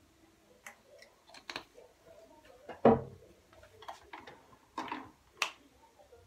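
Kitchen handling noises: a scattering of light clicks and knocks as a bottle is set down and a glass spice jar with a metal cap is lifted from a rotating spice carousel, with one sharper knock about three seconds in.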